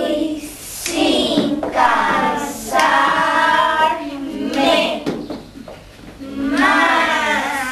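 A group of young children singing a song together in unison, in short phrases with brief breaks between them.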